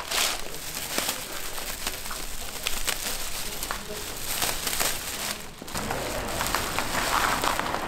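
Clear plastic bag crinkling and rustling as it is pulled off a bundle of flowering branches, then the branches brushing and crackling against a plastic tarp.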